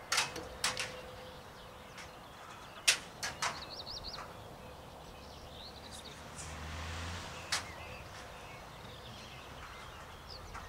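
A handful of sharp clacks and knocks, scattered a second or several apart, with short bird twittering in between.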